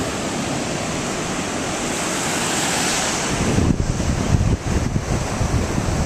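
Surf washing on the shore, with wind buffeting the microphone in uneven gusts through the second half.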